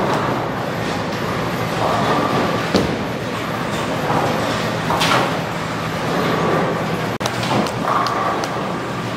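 Busy bowling alley: a steady rumble of bowling balls rolling down the lanes, with a few sharp knocks and clatters of balls striking pins.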